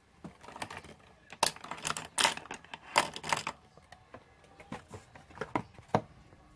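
Makeup packaging and containers being handled: a quick series of sharp clicks, taps and short rustles, densest in the middle, with a few single clicks near the end.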